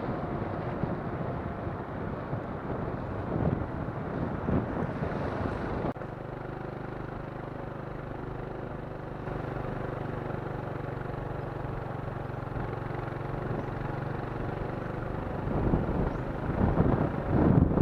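Wind buffeting the microphone. About six seconds in it cuts to a steady low engine-like hum that runs for most of the rest, and the wind buffeting comes back near the end.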